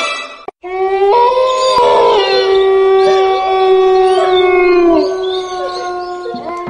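A long howl sound effect, like a wolf's, held on one pitch for several seconds and dipping in pitch as it fades near the end.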